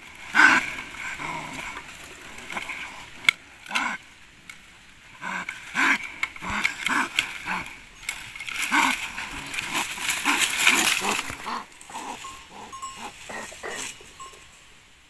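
Dry bamboo leaves and stems rustling and crackling in irregular bursts as a bamboo rat is grabbed and pulled out of a bamboo clump by hand, with short animal cries among the rustling.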